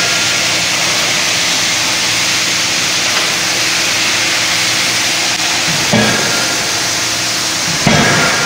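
25 kJ closed-die forging hammer working a red-hot blank: a steady loud machinery din, broken by two sharp blows about two seconds apart near the end.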